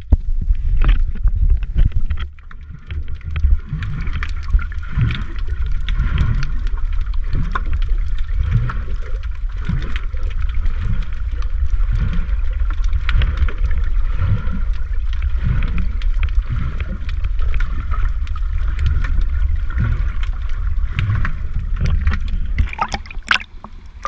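Underwater water noise recorded with the microphone submerged: a heavy low rumble with soft swishes about once a second. Near the end come sharp splashes as the microphone breaks the surface.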